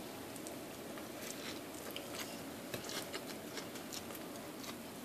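A person biting and chewing a mouthful of toasted grilled cheese sandwich, faint, with small scattered clicks and crunches.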